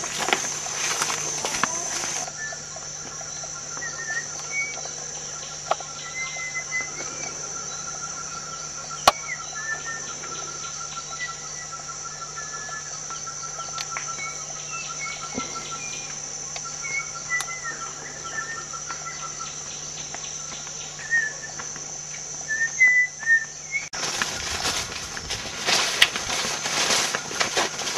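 Forest birds calling: short scattered whistled notes, and a long run of rapid evenly pulsed trill notes through the middle, over a steady high buzz. About four seconds before the end this gives way suddenly to louder rustling and handling noise.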